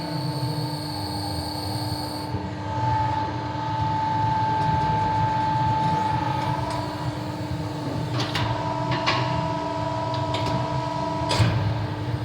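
Beyeler CNC press brake running with a steady machine hum and several held tones that shift in pitch a few times. A few sharp clicks or knocks come in the second half.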